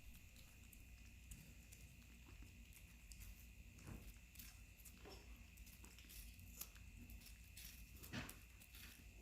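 Near silence: faint room tone with a steady faint high tone and a scattering of small, soft clicks.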